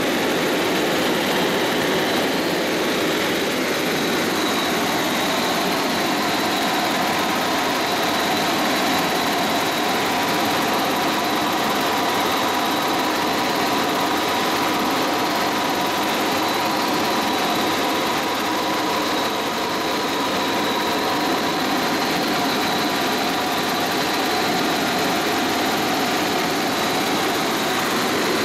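Helicopter in flight heard from inside the cabin: a steady mix of engine and rotor noise with a thin, steady high whine over it.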